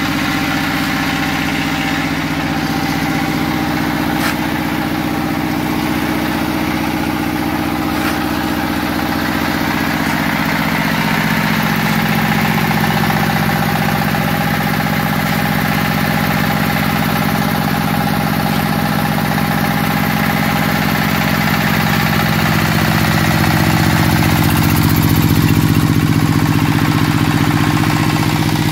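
Small stationary diesel engine running steadily under load as it drives a raw-brick (adobe) making machine being fed with clay. Its note shifts about a third of the way through and it grows slightly louder near the end.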